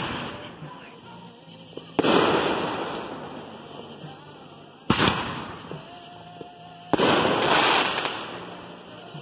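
Consumer aerial fireworks firing: three loud bangs two to three seconds apart, each followed by a hiss that fades over a second or two.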